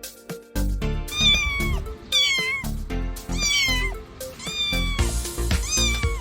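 A domestic cat meowing about five times, each meow about half a second long and dropping in pitch at its end, over background music with a steady beat.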